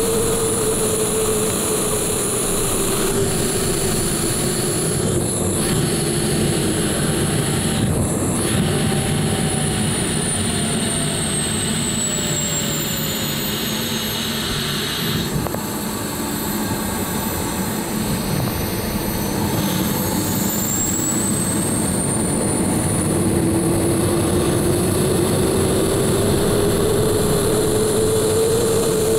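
Bede BD-5J micro jet's small Microturbo turbojet heard from inside the cockpit: a steady whine over wind rush. Its pitch sinks over roughly the first half as the engine spools down, then climbs back up over the last third as it spools up again.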